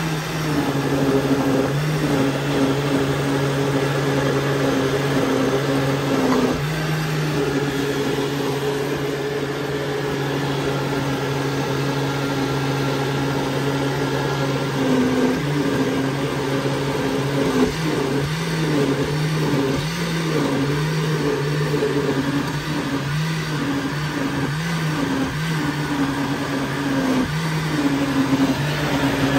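Countertop blender motor running steadily, blending softened dog food with water and milk into a thick mush. About halfway through, its pitch starts to waver as the load on the blades shifts.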